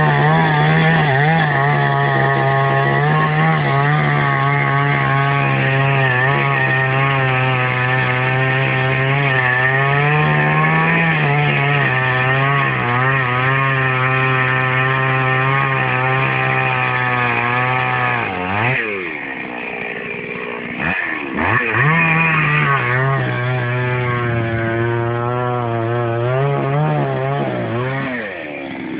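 Chainsaw running at full revs under cutting load, its pitch wavering as it bites. About two-thirds of the way through, the revs fall away to a low idle for a few seconds, then rise again, and they drop once more near the end.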